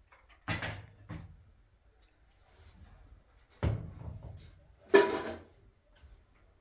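Three sharp knocks or clatters of objects being handled, the third the loudest, with a brief ring to it.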